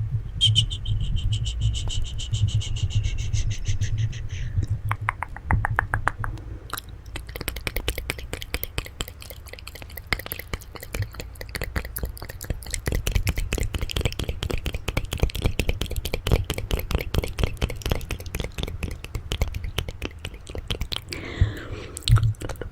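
ASMR mouth sounds close to the microphone: a fast, high buzzing rattle for the first few seconds, then dense, rapid wet tongue clicks and smacks, over a low rumble.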